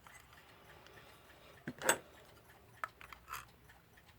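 A few small clicks and scrapes of tweezers working on the metal parts of a Metamec electric clock movement as it is taken apart. The loudest click comes a little under two seconds in, and several lighter ones follow.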